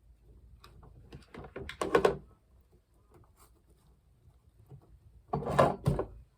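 Clicks, taps and rustles of craft pieces and materials being handled on a tabletop, in two short clusters: one about two seconds in and one about five and a half seconds in.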